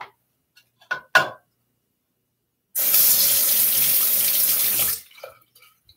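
Bathroom sink tap running for about two seconds, then shut off, after two short knocks about a second in.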